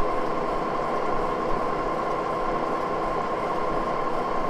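Moore jig borer running, a steady machine hum with a constant whine and no change in pitch or speed.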